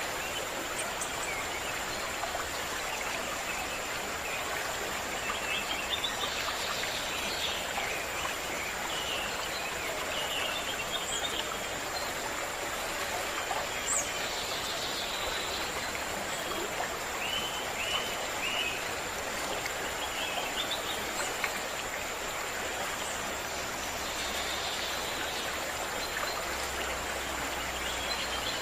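A stream running steadily, with birds chirping in short calls now and then and a faint steady high-pitched tone throughout.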